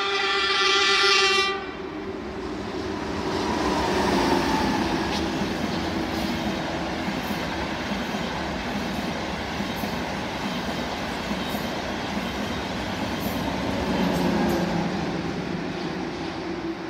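Frecciarossa high-speed train's horn sounding and cutting off about a second and a half in, then the train running through the station with a steady loud rush of passing noise.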